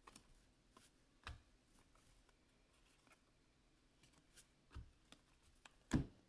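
Mostly near silence, with a few faint clicks of trading cards being flipped through by hand. A louder short tap comes near the end as the stack of cards is set down on the table mat.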